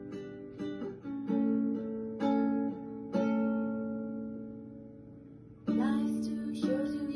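Acoustic guitar strumming chords: a few sharp strums in the first three seconds, then one chord left ringing and slowly fading for about two seconds before the strumming starts up again, louder.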